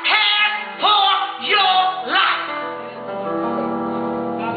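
A woman singing a gospel song through a microphone, with keyboard accompaniment. Her short sung phrases give way about three seconds in to a long held chord.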